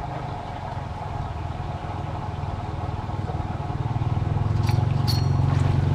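A small engine running steadily with a low hum, growing louder over the second half. A brief high chirp sounds about five seconds in.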